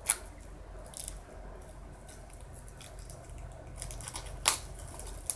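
Tarot cards and their cardboard box being handled: light papery rustling and scraping, with two sharp snaps, one right at the start and one about four and a half seconds in.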